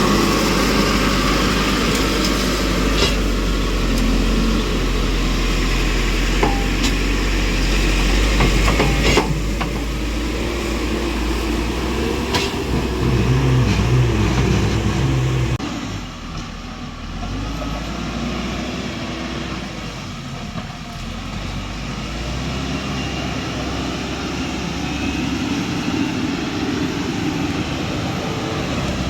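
Tractor engine running steadily while working the road, with a few sharp metallic clanks; the engine drops in level about halfway through.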